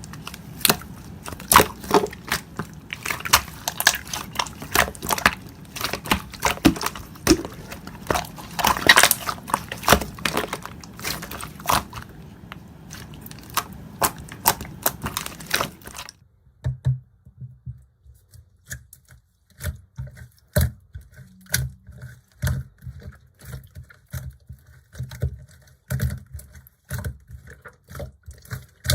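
Slime being squeezed and pressed by hand: a dense run of sticky clicks and pops. About sixteen seconds in it changes to quieter, sparser pops with soft low thuds.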